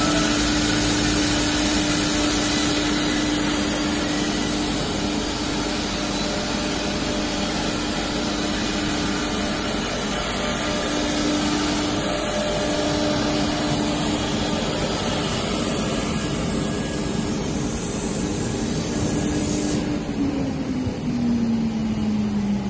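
CNC nesting router spindle running steadily with a constant whine over a hiss of machining and dust extraction. About 20 seconds in, the hiss drops and the whine falls in pitch as the spindle spins down.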